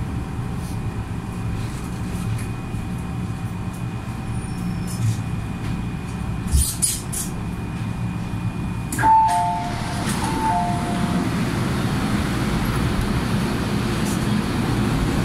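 MTR M-Train pulling into a platform and stopping, with steady whining tones from its running gear. About nine seconds in, a knock, then the door chime plays a two-note high-low ding-dong twice as the doors open, and platform noise comes in.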